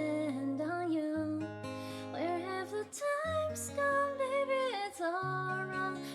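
Pop song cover: strummed acoustic guitar with held bass notes under a sung melody line.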